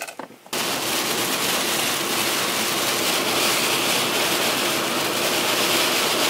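Steady rush of heavy rain and wind on a car driving fast on a highway in a storm, heard from inside the cabin. It starts abruptly about half a second in.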